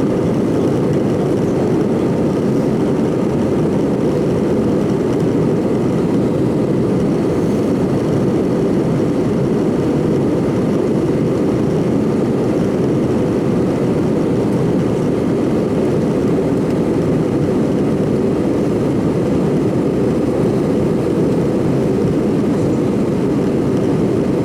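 Steady cabin roar inside an Airbus A319-112: an even rush of airflow and its CFM56 jet engines, with no change in pitch or level.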